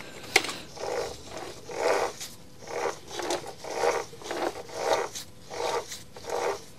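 Drive shaft and gears of a freshly reassembled Makita UC3541A electric chainsaw turned over by hand in short scraping, ratchety strokes, about one a second, as a check that the gear train inside the new housing turns freely.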